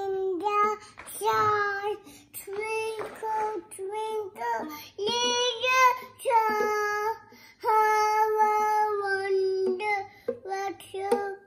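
A two-year-old child singing a string of held, high notes with short breaks between them; the words are not clear.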